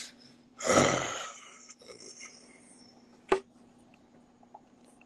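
A man's heavy exhale close to the phone's microphone, starting just under a second in, then a single sharp click a little past the middle, over a faint steady hum.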